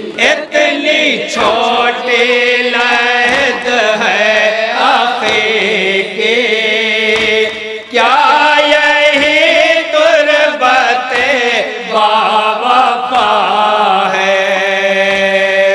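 Amplified men's voices chanting a noha, an Urdu Shia mourning lament, as a continuous melodic refrain.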